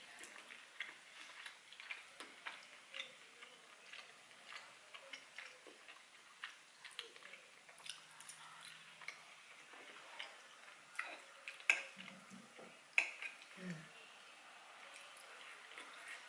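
Close-miked eating sounds: wet mouth clicks and chewing of soft roasted potato and vegetables, with occasional sharper clicks of a metal fork against a ceramic plate. The clicks come irregularly, a few louder ones in the second half.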